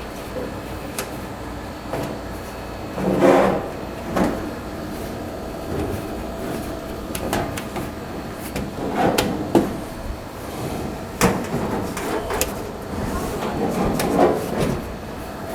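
Clunks, knocks and sheet-metal scraping as a clothes dryer's drum is shoved and worked back into its cabinet, with a handful of louder bangs spread through it over a steady low hum.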